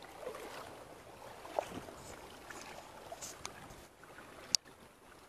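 Outdoor ambience: a steady hiss of wind and rustling with faint scattered ticks, and one sharp click about four and a half seconds in.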